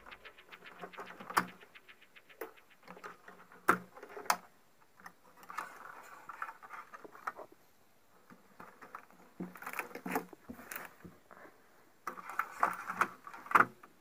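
Hands handling wires, connectors and circuit boards of a CRT TV chassis: scattered sharp clicks and bursts of rustling as cables are moved and plugged in.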